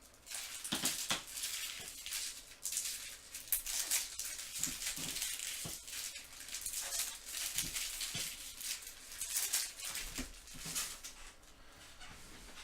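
Paper and foil rustling as trading-card packs are torn open and the cards are handled, in a run of short scratchy swishes with a few soft knocks.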